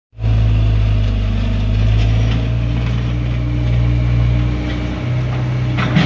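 Caterpillar backhoe loader's diesel engine running steadily under load while the backhoe arm digs, with a sharp knock of the bucket near the end.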